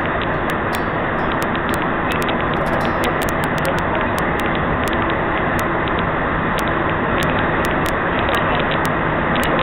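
Steady running noise of a rubber-tyred Montreal metro train, heard from inside the passenger car: an even rumble and hiss with no break.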